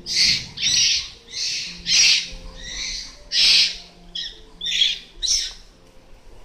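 A rapid series of short, high-pitched animal calls, about two a second, loud and irregular, that stop near the end.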